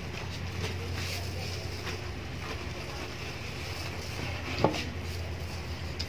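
A steady low mechanical hum with a faint hiss over it, and one short knock about four and a half seconds in.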